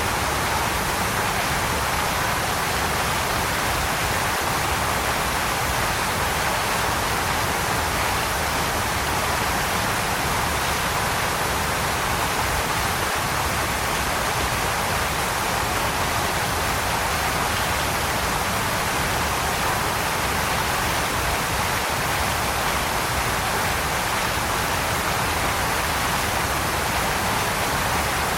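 Waterfall: a steady, even rush of falling water with a hissing top and no changes or separate events.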